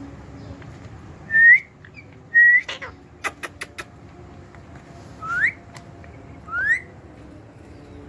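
Four short clear whistles: two held nearly level, then two quick upward sweeps a few seconds later. A quick run of sharp clicks falls between them.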